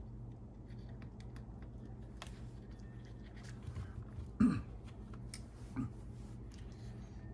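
Light scattered clicks and taps of small plastic parts being handled during RC truck electronics installation, over a steady low hum. About four and a half seconds in comes a short, louder low voice sound, with a fainter one a second or so later.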